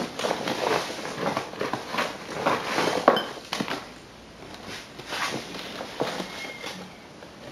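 Rummaging through boxes of odds and ends: irregular clicks, knocks and rustling as items are handled and moved, busier and louder in the first three seconds, then quieter.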